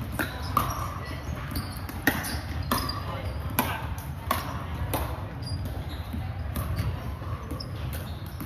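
Pickleball paddles striking plastic balls: sharp pops at irregular intervals, about one or two a second, from play on several courts in a large gym hall.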